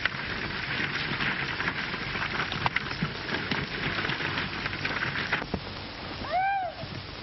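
Horses galloping and a horse-drawn buckboard wagon rattling over rough ground, a dense clatter on an old, band-limited film soundtrack. The clatter thins out about five and a half seconds in, and near the end one high-pitched call rises and falls.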